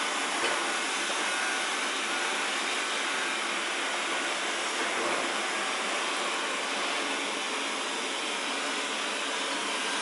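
Xiaomi Mi Robot Vacuum (first generation) running in its balanced suction mode: a steady suction-fan hiss, not very high-pitched, measuring about 68 dB at under a metre.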